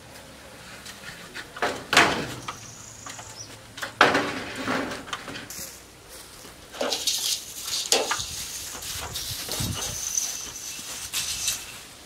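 A metal roofing panel being pushed up and slid onto a shed roof: two sharp knocks about 2 and 4 seconds in, then a few seconds of metal scraping and rattling as the sheet slides into place.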